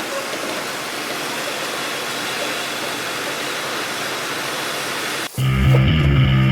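Steady, even hiss of noise like static, which cuts off suddenly about five seconds in. A louder sound with a deep, steady low tone takes over: the start of the intro music.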